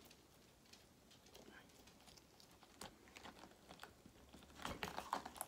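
Faint handling noises of a small plastic toy package being opened: scattered soft clicks and crinkles, a little louder near the end.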